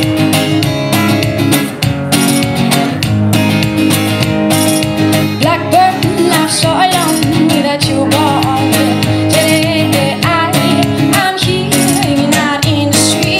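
Acoustic guitar strummed in a steady rhythm in a live pop performance, with a woman's voice singing a melody over it from about halfway through.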